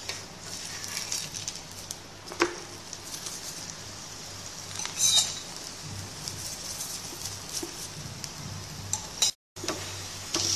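Steel spoon clinking against the hot tawa a few times as oil is spread over a stuffed paratha, over a faint steady sizzle-like hiss.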